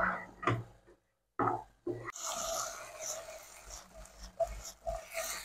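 A wooden spatula stirring baby corn chilli in a nonstick kadai, with a few short scraping strokes. After a brief break comes a steady hiss with small knocks as the food is tossed in the pan.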